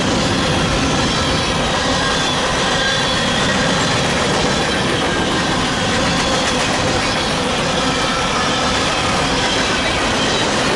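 Freight cars of a grain train rolling past, a steady rumble of wheels on rail with faint high wheel squeal.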